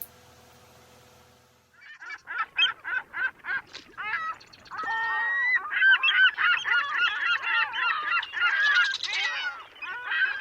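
Geese honking. After a near-quiet start, single honks come about three a second, then from about five seconds in many overlapping honks, as from a flock.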